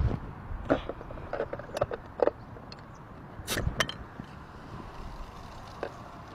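Glass soda bottles being shaken and set down on a surface: a scattering of short knocks and clinks over a faint steady background, the sharpest about three and a half seconds in.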